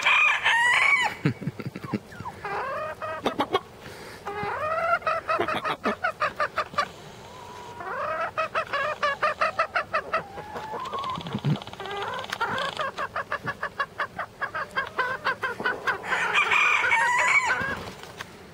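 Chickens clucking close by in quick runs of short notes, broken by several long drawn-out calls from a rooster crowing, the loudest near the end.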